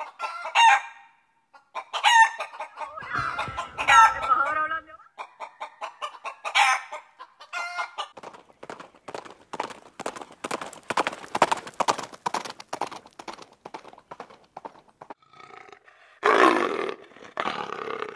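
Chickens clucking, with rooster-like crowing calls: several drawn-out calls early on, then a long run of rapid clucks, then more calls near the end.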